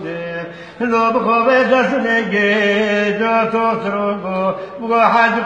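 Singing of a Kurdish lament (ağıt): a voice holding long notes that waver and bend in a slow, ornamented line, with a louder phrase starting about a second in.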